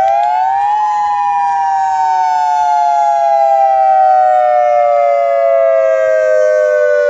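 Civil-defence warning siren on a tower sounding the attack-warning wail, the nuclear-attack signal, sounded here as a test. Two close notes sound together; the pitch rises for about a second, then falls slowly and evenly for the rest.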